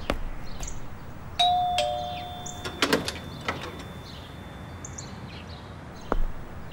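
Two-note doorbell chime, a higher ding then a lower dong, about a second and a half in; the tones ring on and fade over a few seconds. A few sharp clicks follow about three seconds in.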